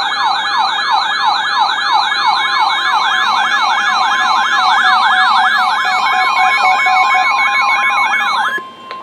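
Weather-alert receiver's electronic alarm siren: a fast warbling tone sweeping upward about three times a second. From about six seconds in, a steady attention tone, the NOAA Weather Radio 1050 Hz warning alarm that comes before a warning message, sounds under it. The siren cuts off near the end, leaving the steady tone alone for a moment.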